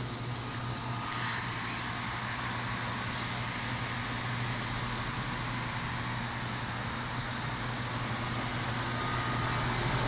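Two outdoor air conditioner condenser units, a Goodman and an older unit, running side by side: a steady low hum under an even rush of fan air.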